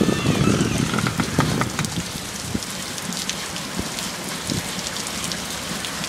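Steady rain falling, with many separate drops ticking close by. A louder low rustle fills the first second and a half.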